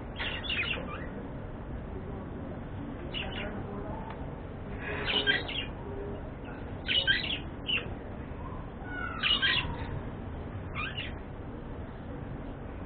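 Budgerigars chirping in short bursts every second or two, one call later on sliding downward in pitch, over a steady low background noise.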